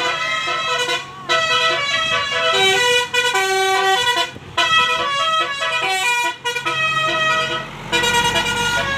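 Tour bus's Basuri telolet multi-tone horn playing a fast, jumping melody of horn notes, breaking off briefly several times and starting again.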